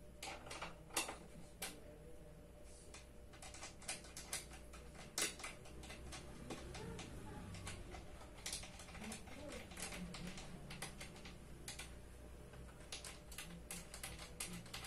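Irregular light clicks and taps from hands working parts under an office chair seat, fitting them in place.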